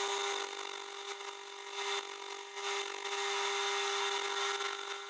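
A small metal lathe running with a steady motor whine while its cutting tool turns down the thread of a bolt to 6 mm. The cutting hiss swells and eases several times as the tool takes its passes.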